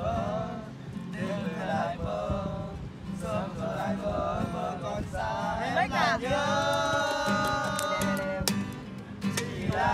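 A group of male voices singing along to a strummed acoustic guitar, with a long held note about two-thirds of the way through.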